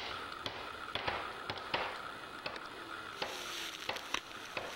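Footsteps crunching through dry grass, leaves and brush: irregular crackles and snaps, roughly every half second.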